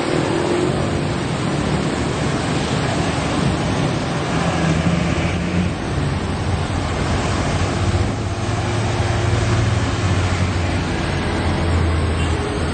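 Road traffic rushing past, with a vehicle engine's low hum coming up in the second half.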